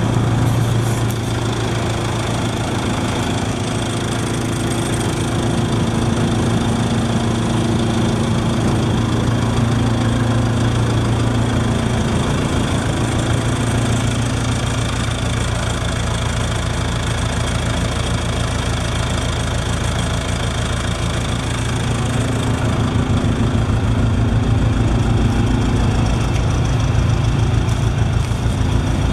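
Aircraft towing tug's engine idling steadily. A lower, evenly pulsing beat comes up about two-thirds of the way through.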